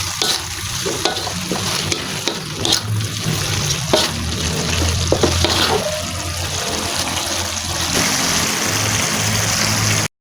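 Green fern (pakis) being stir-fried in a pan: a steady sizzle with scattered clicks and scrapes of the spatula stirring, cutting off suddenly near the end.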